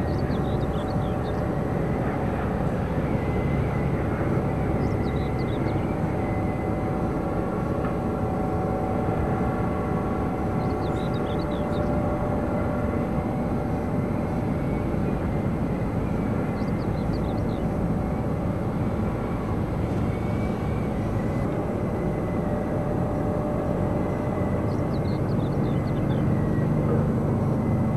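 Bucket-wheel excavator 261 running as it digs, a steady mechanical drone with several steady hum tones. Faint short high chirps come through a few times.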